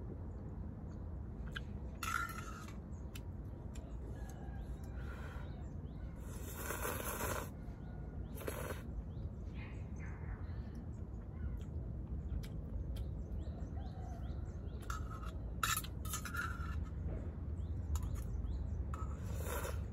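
A person eating ramen, slurping noodles from a stainless steel cup in several short, hissy slurps, over a steady low background rumble.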